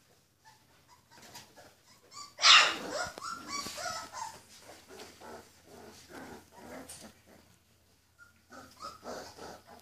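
Rhodesian Ridgeback puppies play-fighting, making a string of short growls and yips. The loudest cry comes about two and a half seconds in, and there is a short pause about eight seconds in.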